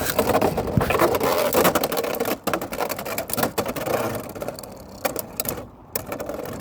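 Two Beyblade X spinning tops, one of them Chain Incendio, whirring and grinding in a plastic stadium, with rapid sharp clicks as they clash. After about four seconds the sound thins and fades as the tops slow, ending the round by one outspinning the other.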